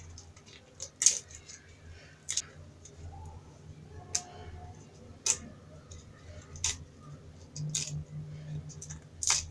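Fresh spinach leaves being snapped and torn off their stalks by hand: about half a dozen crisp snaps at irregular intervals, over a low steady hum.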